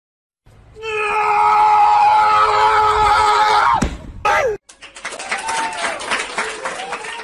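A long, loud scream held at one pitch for about three seconds, falling away at the end, then a short sliding squeal and quieter mixed sounds.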